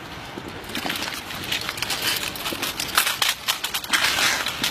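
A squad of soldiers doing rifle drill in unison: a ragged run of many sharp slaps and clicks from hands striking the rifles and the rifles' metal parts, starting about a second in and thickest in the second half.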